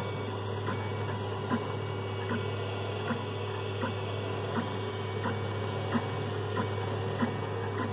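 Monoprice Maker Select 3D printer running mid-print: a steady hum from its fans and motors, with short chirps about every three-quarters of a second as the print head moves back and forth. It runs without squeaking, now broken in.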